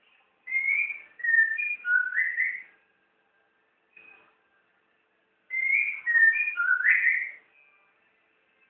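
White-rumped shama (murai batu) singing: two phrases of clear whistled notes at different pitches, the second nearly repeating the first, with a short single note between them.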